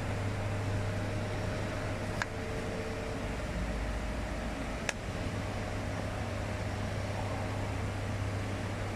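Steady machine hum with an even hiss, with two sharp clicks, about two seconds and five seconds in.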